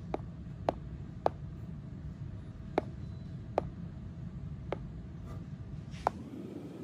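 A stylus tapping on a tablet's touchscreen: seven sharp, irregularly spaced clicks as a word is typed on the on-screen keyboard, the last near the end as an on-screen button is pressed, over a steady low hum.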